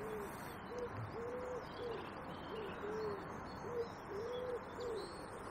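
A pigeon cooing: a run of short, soft, low coos, about two a second, with faint small-bird chirps behind.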